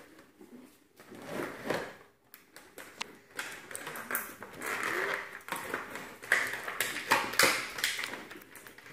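Irregular taps, clicks and rustling from a plastic toy and its cardboard packaging being handled.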